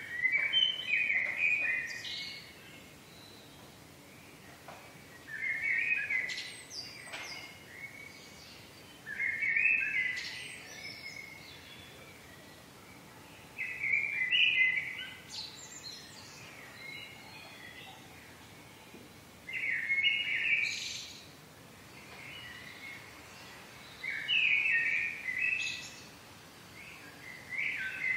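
A songbird singing, repeating a short warbled phrase of about two seconds roughly every four to five seconds, over a faint steady background hiss.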